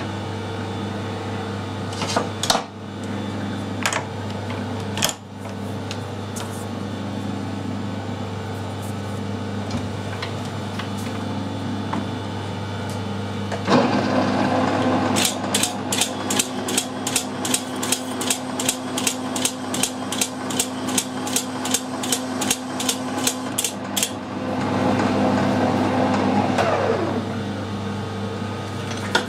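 Metal lathe running slowly with a steady gear hum, a few single clicks near the start. About halfway through, the turning tool bites as it chamfers the outer edge of a knurled steel boss, adding a steady tone and a regular ticking about three times a second for some ten seconds, then a rougher scraping sound before it eases off.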